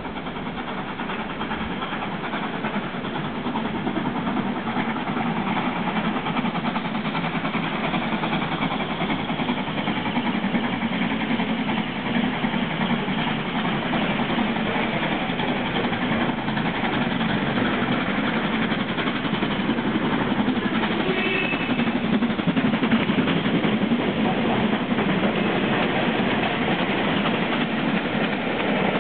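Convoy of LMS steam locomotives (a Royal Scot, a Jubilee and an 8F 2-8-0) approaching through the station at speed. The rumble of the engines and train grows steadily louder as they draw near, until they are passing close by near the end.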